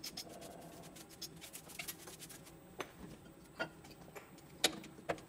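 A brush sweeping aluminium chips off a machined part and vise, with scattered light clicks and taps of metal being handled, the sharpest near the end.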